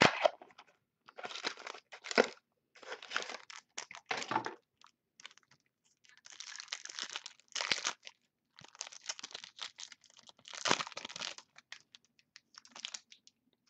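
Trading-card pack wrapper crinkling and tearing as the pack is cut open and the cards are pulled out and shuffled, in irregular bursts of rustling with short pauses between, beginning with a sharp crack.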